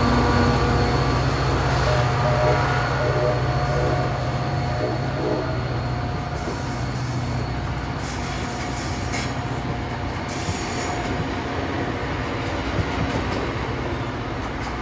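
A diesel-hauled NJ Transit passenger train passing and pulling away. The locomotive's diesel engine runs close by at first, then the coaches' wheels roll and squeal on the rails. The sound fades gradually as the train recedes.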